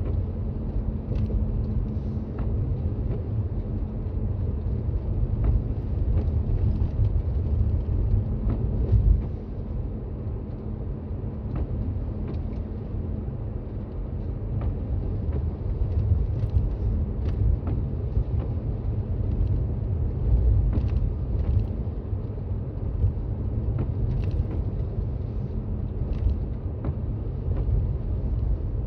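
Toyota Raize Z 4WD driving on snowy roads: a steady low road-and-drivetrain rumble, with scattered faint short ticks. It eases slightly for a few seconds about a third of the way in.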